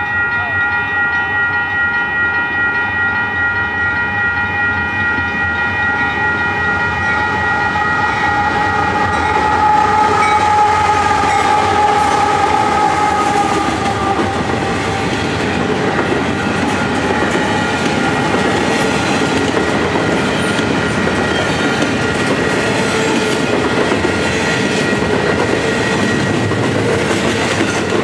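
Diesel freight train led by CP 9824, a GE AC4400CW, passing a level crossing. The locomotive's horn sounds a long steady chord that dips slightly in pitch as the locomotives go by, at the loudest point about ten seconds in, and stops about halfway through. Then double-stack container cars roll past, their wheels clattering over the rail joints.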